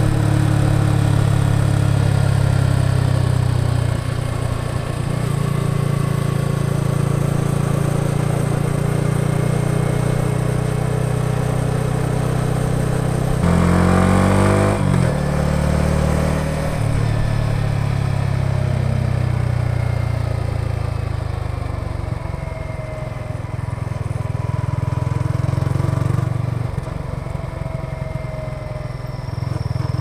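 Yamaha XSR 155 motorcycle's single-cylinder four-stroke engine and exhaust on the move. It runs at a steady note, the revs rise sharply about halfway through and then settle back, and the pitch steps down a few times later on.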